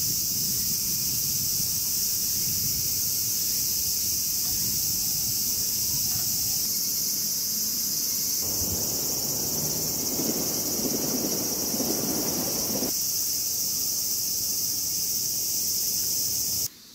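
A steady, high-pitched chorus of summer cicadas droning in the trees. A low rumble joins in about halfway through, and the chorus cuts off suddenly just before the end.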